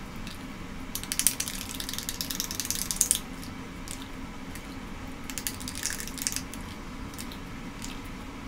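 Metal spoon stirring thick mayonnaise-and-ketchup sauce in a glass bowl: wet squelching with rapid clicks and scrapes of the spoon on the glass, in two spells, about a second in and again around five to six seconds.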